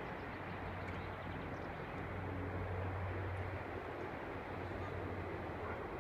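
Police helicopter's steady drone, with a low hum that swells slightly about two seconds in.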